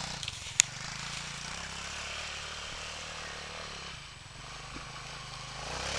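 Bashan 200 quad's single-cylinder four-stroke engine running at low, fairly steady revs, dipping slightly about four seconds in, with one sharp click about half a second in.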